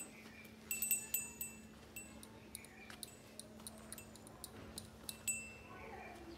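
Small metal bells on a goat's festive decorations jingling in irregular light clinks as the decorations are fitted on the goat.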